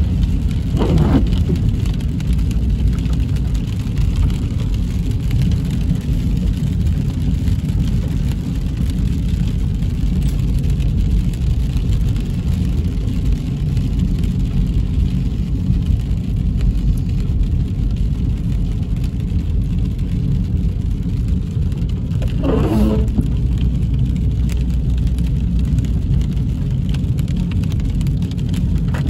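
Car driving on a road, heard from inside the cabin: a steady low rumble of engine and tyres. A short pitched sound cuts in about a second in and again near the end.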